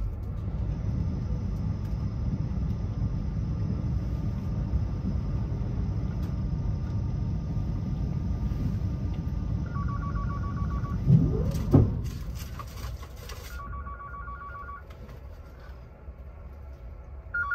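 A mobile phone ringtone in a train carriage, a fast-warbling two-tone trill that rings in short bursts three times, over the steady low rumble of a Renfe S120 high-speed train running. About eleven seconds in, two sharp loud noises are heard, after which the rumble drops.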